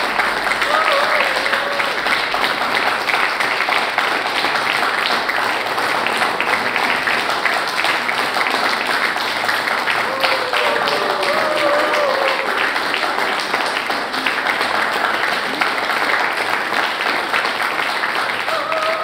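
Audience applauding steadily, with a few short voices calling out over the clapping near the start and again about halfway through.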